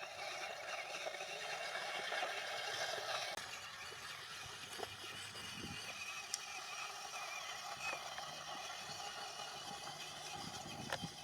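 A radio-controlled model vehicle's small electric motor and gears whining steadily, cutting out about three and a half seconds in; scattered light clicks and knocks follow.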